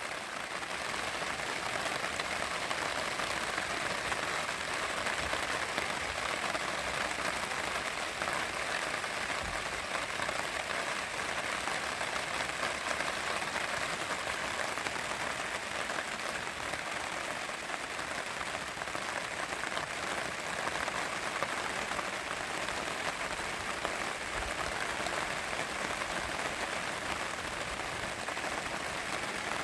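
Steady rain pattering on a tarp overhead, an even patter of many drops with no let-up.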